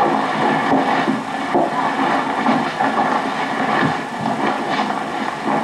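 16mm film projector running, a steady mechanical rattle that carries on under the scene.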